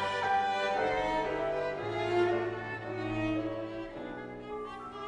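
Classical chamber music with violin and cello playing slow, sustained lines, a lower held note entering about two seconds in.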